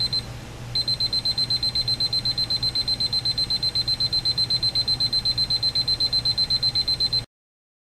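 Elgin 3408E LCD alarm clock's alarm sounding: a high-pitched electronic beep pulsing rapidly, about seven or eight beeps a second. It sounds briefly, pauses, then beeps steadily until it cuts off suddenly near the end.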